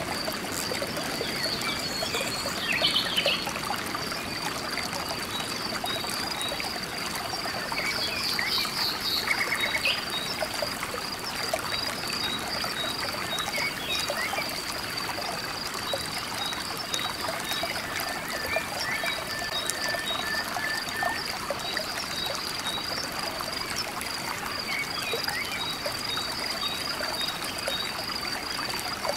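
A shallow river running over rocks, with a steady high, fast-pulsed chirping of frogs running through it and a few brief chirps near the start and about a third of the way in.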